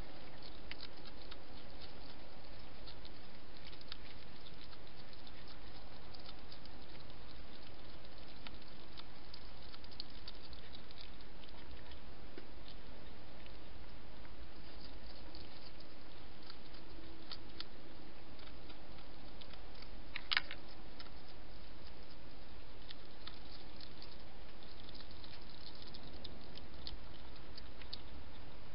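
European hedgehog eating from a dish: scattered small clicks and crunches of chewing over a steady hiss, with one sharper, louder click about twenty seconds in.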